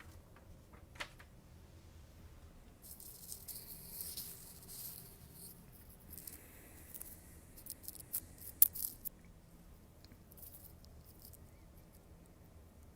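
Light rustling and rattling of things being handled, with scattered sharp clicks and a short burst of loud clicks about eight to nine seconds in.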